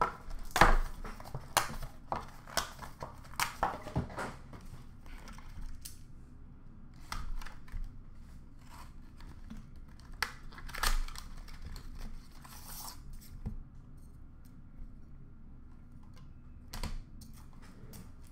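Hands opening a box of hockey trading cards: cardboard lid and packaging rustling, with scattered sharp clicks and taps as cards and card cases are handled, loudest about half a second in and again around eleven seconds.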